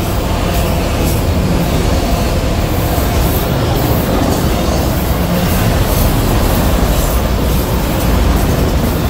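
Freight train of autorack cars rolling past close by: a loud, steady rumble of steel wheels on rail.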